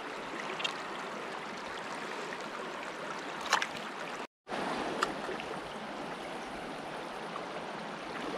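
Small mountain river running steadily over stones, a constant rush of water. Two short clicks come a little before and just after the middle, with a split-second dropout to silence between them.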